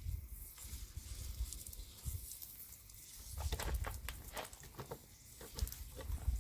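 Scattered light clicks and knocks of a garden tap being worked loose from its plastic fitting, bunched in the second half, over a low rumble.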